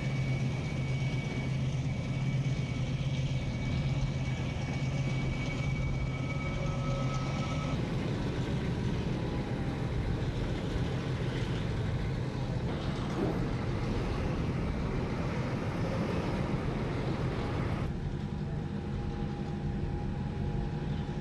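Motor vehicles running outdoors: a steady low engine hum under a noisy rumble. The sound changes abruptly three or four times as the footage cuts between shots.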